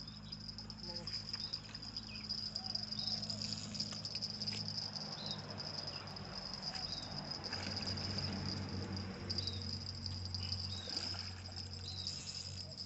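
Insect chorus: a steady high trill throughout, with scattered short chirping calls and a low steady hum underneath.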